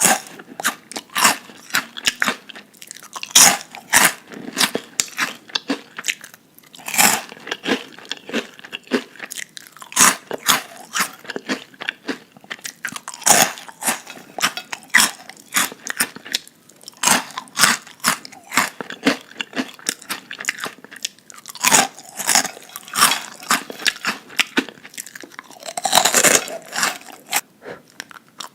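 A person eating crunchy food close to the microphone: loud, crisp bites and chewing crunches at an irregular pace.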